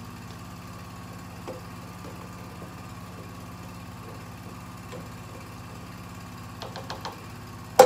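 A steady low mechanical hum, like a kitchen motor running, with a few light clicks near the end and a sharp knock at the very end.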